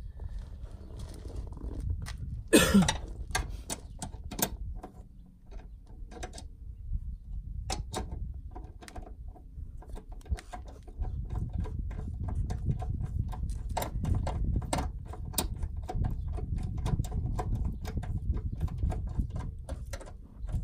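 Hands working under a pickup's dashboard among plastic interior trim and wiring: scattered clicks and knocks, one loud sweep falling in pitch about two and a half seconds in, and a low rumble that grows stronger from about halfway.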